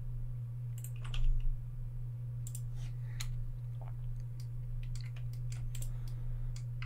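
Irregular computer keyboard and mouse clicks, a quick cluster about a second in, over a steady low hum.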